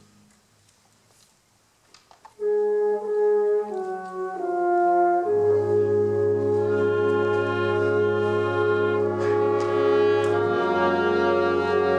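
School wind ensemble playing slow, sustained chords. A chord cuts off into about two seconds of near silence. The band then comes back in softly with a line that steps down through a few notes, and swells into a full held chord with low brass about five seconds in.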